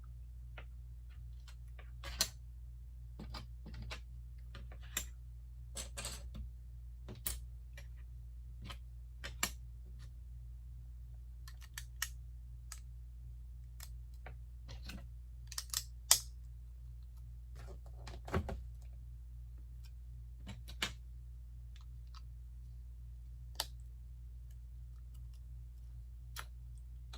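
Plastic LEGO bricks clicking as pieces are handled and pressed together: irregular sharp clicks, the loudest about sixteen seconds in, over a steady low hum.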